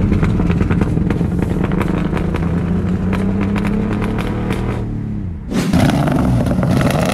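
Ford Mustang V6 running rough while driving, heard from inside the cabin, with popping through the engine sound from a misfire and a leaking intake tube. About five and a half seconds in it cuts to the engine heard from behind the car, rising in pitch.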